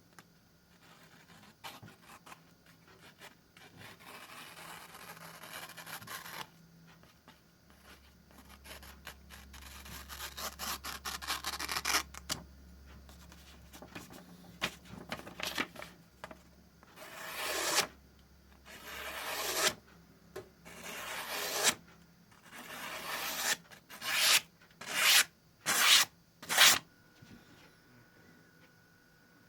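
Freshly sharpened knife slicing through paper in a series of hissing cuts. Two long, drawn-out cuts in the first half are followed by a run of short, separate slices that come faster toward the end, the sign of a keen edge biting cleanly into the sheet.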